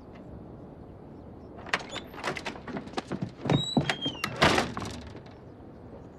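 A door being handled: a run of knocks and clicks, with two heavier thuds about three and a half and four and a half seconds in and a short squeak between them.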